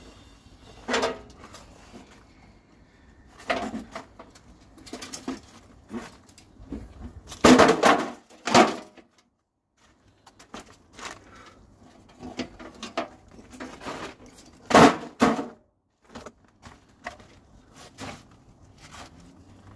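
Irregular knocks and clatter from a smashed microwave's metal and plastic parts being struck and handled. The loudest bangs come about halfway through and again near three quarters of the way, with a brief silence between.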